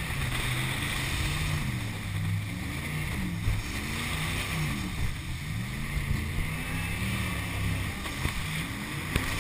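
Jet boat engine running hard, its pitch rising and falling again and again as the throttle is worked, over a steady rush of water and wind.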